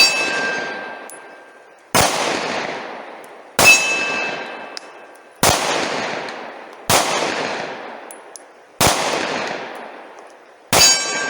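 Glock 43X subcompact 9mm pistol firing full metal jacket rounds, seven shots at a steady pace about one and a half to two seconds apart. Each crack is followed by a long echoing tail, and some are followed by a brief ringing tone.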